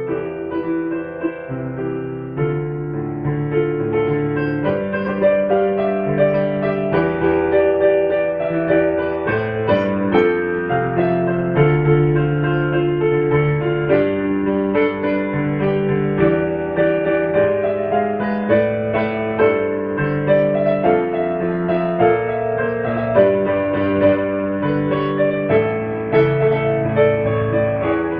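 Background piano music, a steady run of melody and chords.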